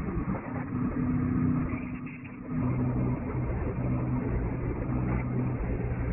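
An engine running steadily. About two seconds in it dips briefly, then settles back at a lower, steady pitch.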